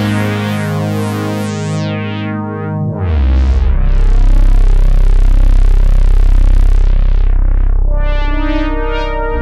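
Polyphonic synthesizer chords from a Roland synth running a Juno-106 model. For the first few seconds the chords pulse, brightening and dimming several times a second; about three seconds in a deep bass note joins a held chord whose brightness swells up and falls away slowly, and the chord changes near the end.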